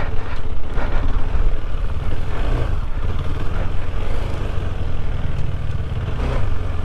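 KTM 390 Adventure's single-cylinder engine running as the bike is ridden off-road, heard under a steady, dense low rumble.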